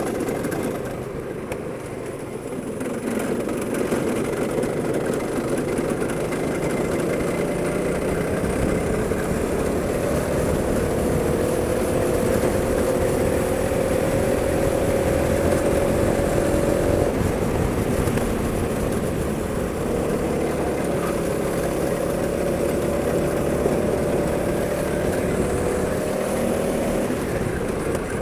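Go-kart engine running under throttle, rising slowly in pitch as it gathers speed, dropping suddenly just past halfway, then rising again.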